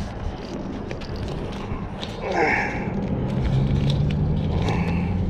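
Low, steady engine hum over a rough rumble, with a deeper hum joining about three seconds in, and a brief falling squeak about two seconds in.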